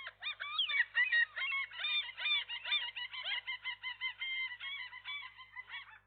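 Common gulls calling: a dense run of many quick, overlapping high call notes that thins out near the end.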